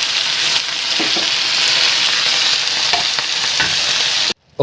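Chicken breast frying in hot oil with ginger, onions and garlic: a steady loud sizzle with a few light clicks. It cuts off suddenly near the end.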